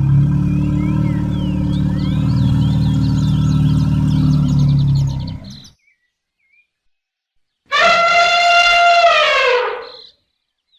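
An elephant gives a long, steady low rumbling call for about five and a half seconds while small birds chirp over it. After a short silence an elephant trumpets for about two seconds, the call falling slightly in pitch.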